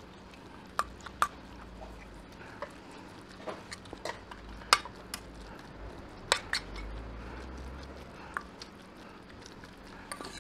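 Spoon and chopsticks clinking against dishes and bowls during a meal: a scattering of sharp, separate clicks, the loudest near the middle, over a low steady room background.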